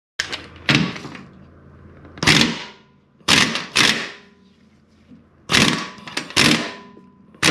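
Metal tools working the seized lower control arm nut and bolt of a 2003 Jeep Wrangler: a series of about seven short, sharp metallic bursts with short gaps, the last one longer.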